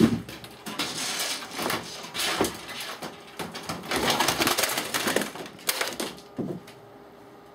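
Clattering and crashing of things knocked over by a cat: a pair of keyboards falling down behind the desk and a computer monitor coming down. It is a run of irregular knocks and clatters, loudest about four to five seconds in, that stops near the end.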